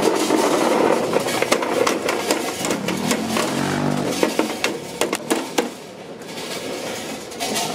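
Roasted chestnuts clattering and clicking against metal as they are scooped from a drum roaster with a wire-mesh strainer, over the steady mechanical running of the roaster. The clatter eases off about six seconds in.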